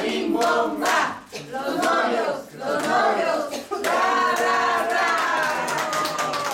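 A small group of people singing together in unison while clapping their hands, ending on a long held note about four seconds in, with the clapping carrying on.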